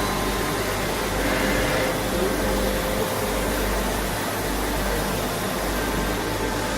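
Steady hum and hiss of machinery running, with no starts, stops or knocks.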